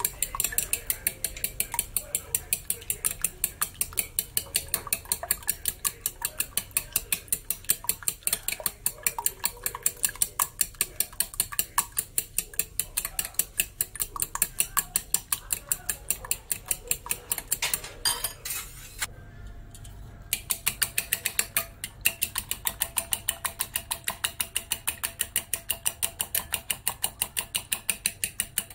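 Metal fork beating raw eggs in a glass bowl, clicking against the glass in a fast even rhythm of about three to four strokes a second, with a short pause partway through.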